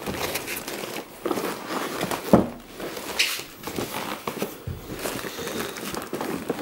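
Handling noises from an infant car seat: rustling with scattered clicks and knocks from its harness buckle and plastic fittings, the sharpest knock a little over two seconds in.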